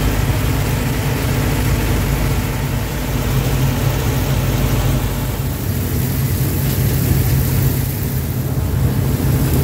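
Tractor-driven grain thresher running steadily, the tractor's engine giving a constant low hum under the rushing noise of the threshing machine.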